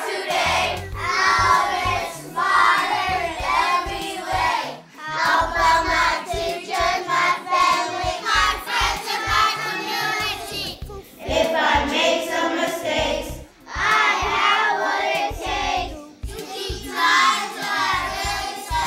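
A group of children singing together in phrases of a few seconds, with short breaks between them.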